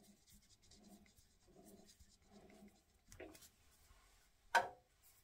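Plastic nozzle of a glue bottle scratching faintly against a brass part in a lathe chuck as glue is spread on, in soft strokes repeating less than once a second. A single sharp tap comes near the end.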